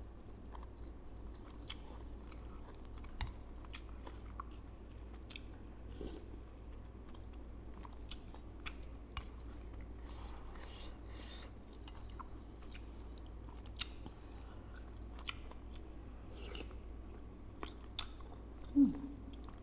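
Close-miked chewing of bakso meatballs with crunchy cartilage, wet mouth sounds and crunching, with scattered sharp clicks. Near the end, a short loud mouth sound that drops in pitch.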